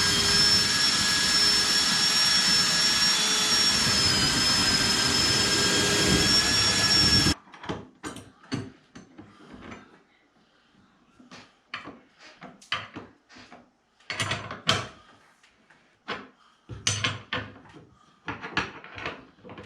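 Electric power tool motor spinning up and running steadily with a high whine, stopping sharply about seven seconds in. Scattered knocks and clatter of work follow.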